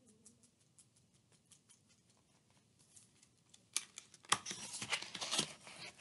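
Pages of a picture book being turned: a papery rustle with a few sharp clicks, starting about four seconds in.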